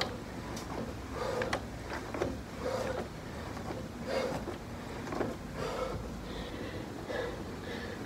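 Home elliptical trainer squeaking in a steady rhythm, one short squeak about every second and a half as the pedals go round, with a few light clicks and knocks from the machine's moving parts.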